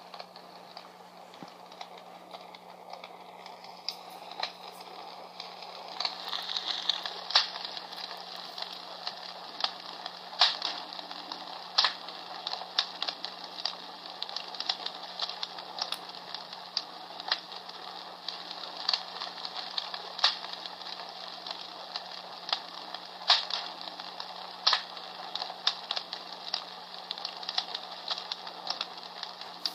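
Comfort Smart Fire Crackler, a palm-sized battery-operated sound machine, playing a recorded crackling wood fire through its small speaker: a steady hiss with many sharp snaps and pops. It grows louder about six seconds in.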